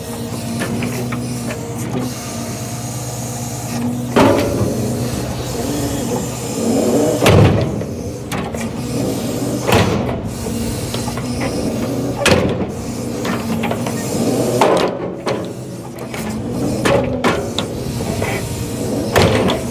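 Log truck's diesel engine running steadily to power its hydraulic knuckleboom loader as the crane swings, with a knock or clunk from the loader and logs every two to three seconds.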